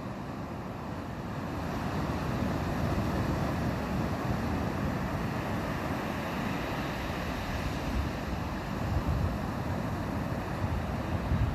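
Ocean surf washing onto a beach in a steady rush, with wind buffeting the microphone in low gusts, strongest near the end.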